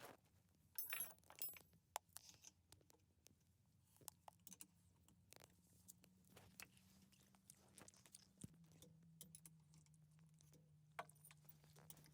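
Faint, scattered clicks and clinks of metal tools and engine parts being handled, with a cluster of louder clinks about a second in, over a faint steady low hum.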